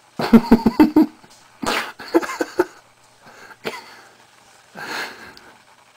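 A young man's bursts of stifled, breathy laughter: a quick run of pulses in the first second and another about two seconds in, then a short click and a softer breath near the end.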